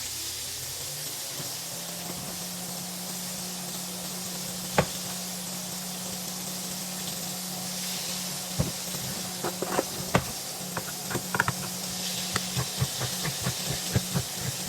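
Food frying in a pan with a steady sizzle. A utensil knocks once, then from about halfway through it stirs and knocks against the pan many times. A steady low hum starts about a second in.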